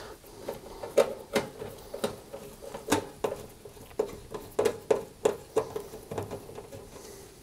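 Hand screwdriver undoing screws in the metal top panel of a Rangemaster cooker: irregular small clicks and scrapes of the tip in the screw heads, one or two a second.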